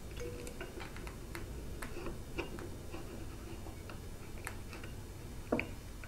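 Scattered light clicks and taps at irregular intervals as a hook tool works the rubber inlet hose onto the compressor housing of a Blouch Dominator turbocharger, with a slightly sharper click near the end.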